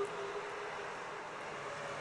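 Distant AHAB tsunami siren winding down, its falling tone fading out over a steady hiss of traffic noise.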